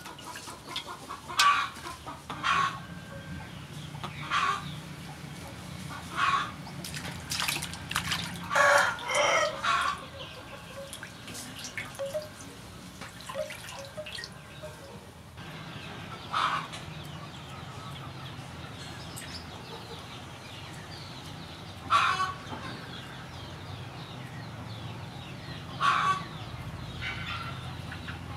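Chickens clucking, with a rooster crowing, in short loud calls every second or two, sparser in the second half. Water splashes faintly in a washing basin.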